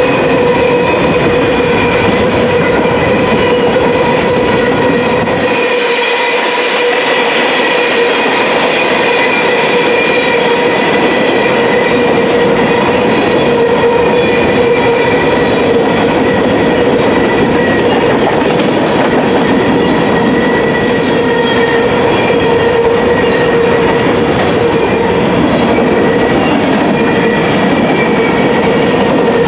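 Grain train freight cars rolling past close by: the wheels clatter over the rails, with a steady high-pitched wheel squeal that holds on throughout.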